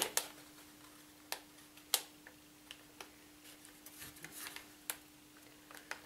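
Light clicks and taps of laser-cut MDF puzzle-box pieces being handled and fitted together by hand: about half a dozen sharp, separate clicks spread over a few seconds with a little faint rubbing, over a faint steady hum.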